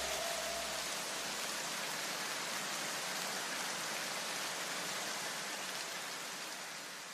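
An even, rain-like noise wash left over as the electronic background music drops out, slowly fading. A low bass note dies away about a second and a half in.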